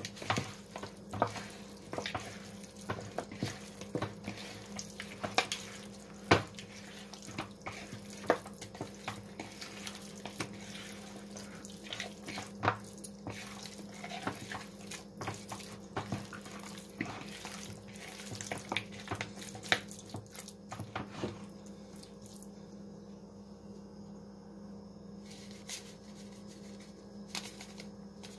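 Wet squelching and slapping of hands kneading raw chicken pieces in a curry-seasoning marinade in a bowl, many irregular squishes that mostly stop about three quarters of the way through, with only a couple of soft ones after.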